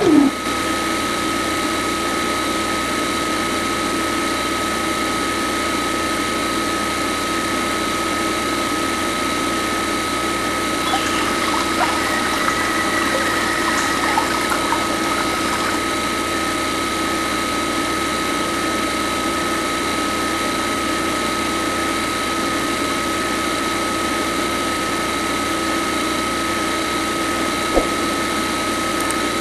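Small DC motor of a toy borewell drilling rig running steadily with a constant whine while its drill bit bores into wet mud.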